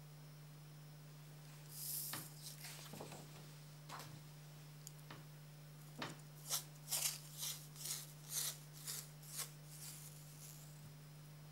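Silver adhesive tape being pulled off its roll in a run of about eight short, scratchy tugs, roughly two a second, after a few rustles and taps of handling. A steady low hum lies underneath.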